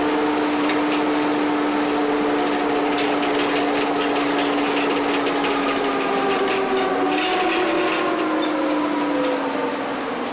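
Cabin of a moving 1999 first-generation Nova Bus LFS transit bus: a steady drone from the drivetrain and the roof-mounted air-conditioning fans running at full blast, with a held whine that dips and rises a little midway and falls near the end. Road noise and scattered rattles run underneath.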